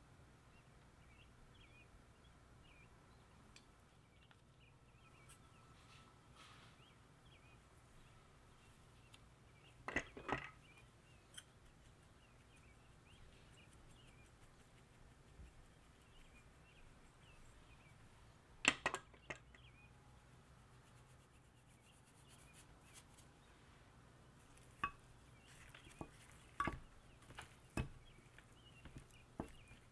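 Near-quiet room with faint bird chirps in the background. A few short clicks and knocks of a bottle and spice containers being handled over a glass baking dish come about ten seconds in, again around nineteen seconds, and several times near the end.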